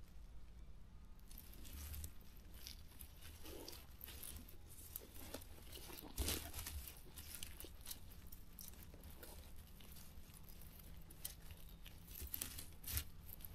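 Faint, irregular rustling and crackling of dry grass stalks and soil handled close by while a rat snare is set, with scattered small snaps and a louder crackle about six seconds in.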